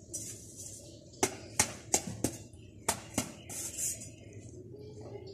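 Clay bricks knocking against each other as they are handled: a series of sharp clinks, four in quick succession and then two more.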